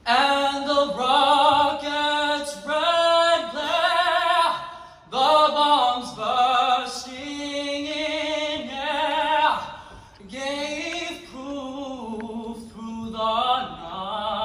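A single voice singing long, held notes with strong vibrato, in phrases of a second or two with short breaths between them.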